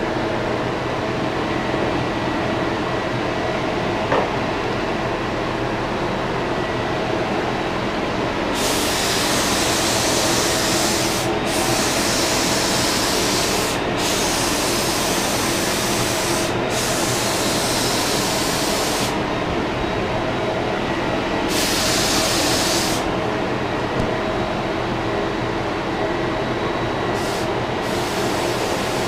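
Paint spray gun hissing in trigger pulls as paint is sprayed onto a cabinet door. There is one long pull of about ten seconds with three short breaks, a shorter pull later, and brief bursts near the end, all over a steady machine drone.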